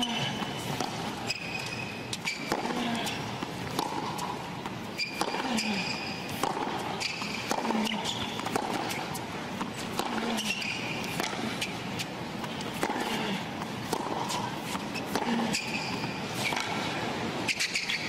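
Tennis rally on a hard court: repeated sharp pops of racquets striking the ball and the ball bouncing, about one every second or so, over a steady background of crowd and court ambience.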